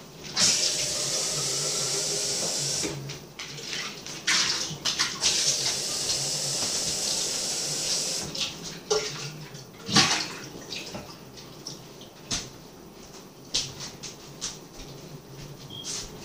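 Kitchen tap running into a container as it is rinsed out: the water runs for about two seconds, stops, then runs again for about four seconds. After that come scattered knocks and clinks of the container being handled, the loudest about ten seconds in.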